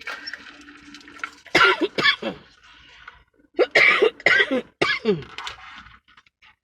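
A woman coughing in two bouts: a couple of harsh coughs about one and a half seconds in, then a longer run of three or four coughs about two seconds later.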